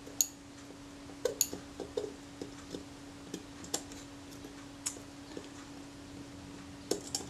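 Small, sharp metallic clicks and ticks at irregular intervals, made by a fine steel tool against the metal parts of a Rolleiflex Automat camera body while a tiny return spring is hooked over its post. A steady low hum runs underneath.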